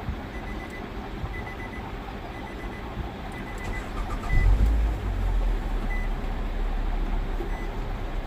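Nissan Altima's four-cylinder engine running after a broken ECM wire was repaired, curing its no-crank, no-start fault. About four seconds in there is a loud low surge, after which the engine runs louder. A faint high beep repeats, at first about twice a second, then only now and then.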